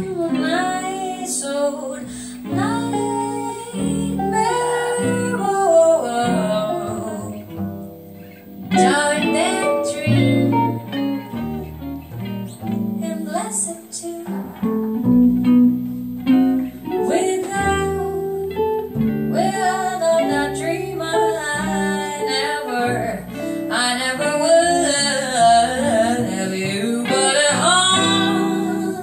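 A woman singing a slow jazz ballad into a microphone, with a hollow-body archtop guitar accompanying through an amplifier.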